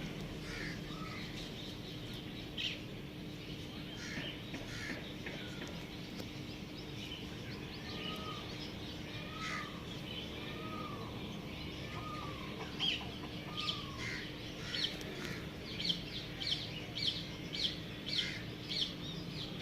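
Birds calling: a few short arched calls in the first half, then a run of short, high chirps repeating about twice a second through the second half, over a steady low hum.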